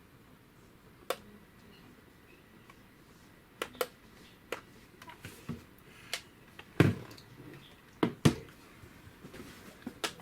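Irregular clicks and knocks, about nine, from handling a plastic alarm clock between its melodies, with two louder knocks in the second half.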